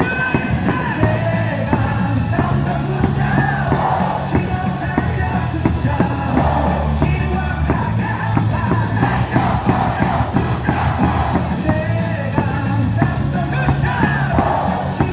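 Crowd of baseball fans singing and yelling along to a loud cheering song with a steady beat played over the stadium speakers.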